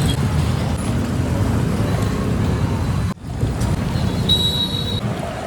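Busy street noise with a steady rumble of traffic, cut off for an instant about three seconds in. A brief high-pitched tone sounds about four seconds in.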